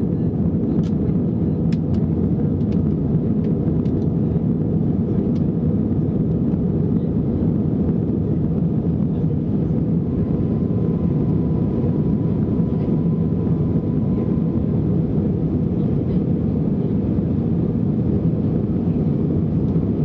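Steady low roar of engines and airflow heard inside the cabin of an Airbus A320 airliner climbing after takeoff. A faint steady whine joins it for a few seconds about halfway through.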